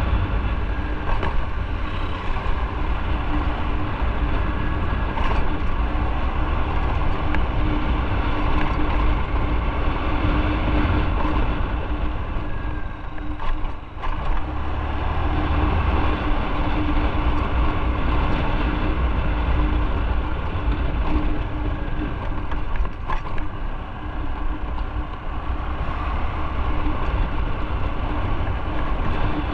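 Motorcycle engine running while riding at low speed, with wind rumble on the microphone. The sound eases off briefly about halfway through.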